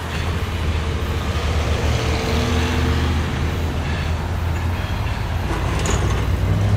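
Diesel engines of EMD GP40-3 locomotives running under load, a steady low rumble, as the train rolls past on jointed track.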